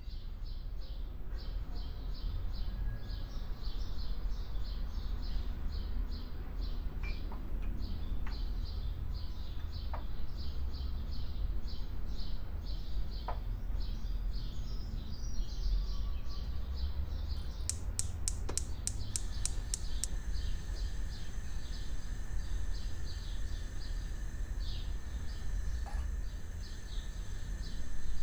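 Designed ambient soundscape: rapid high chirping repeating steadily over a low rumble, with a few faint clicks. Just before two-thirds of the way through, a quick run of sharp ticks comes, and after it a thin steady high tone joins.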